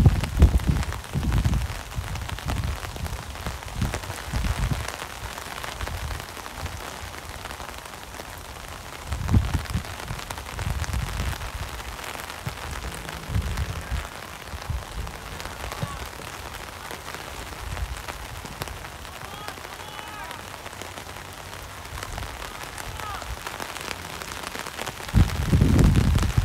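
Steady hiss of rain falling, with low rumbles and thumps close to the microphone now and then. There are faint distant shouts in the second half.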